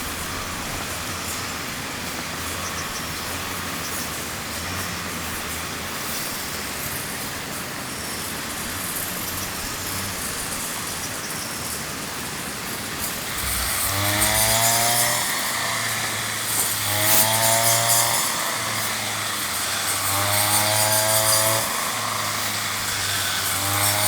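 Small motor-driven machine running, a steady hum and hiss. About halfway in, the motor's whine starts to rise and fall in regular cycles about three seconds apart, four times. This fits a mini rice threshing machine.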